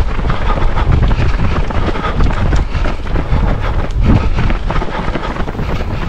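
Wind buffeting the microphone of a camera carried by a runner, a loud, steady low rumble.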